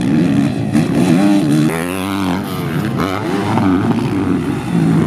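Several motocross dirt bike engines on track, revving up and easing off again and again, their pitches rising and falling and overlapping.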